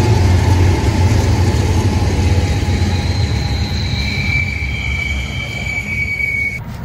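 Freight train rolling past: a low rumble from the diesel locomotives fades as double-stack container cars follow, and a high-pitched steel wheel squeal sets in about three seconds in. The sound cuts off suddenly near the end.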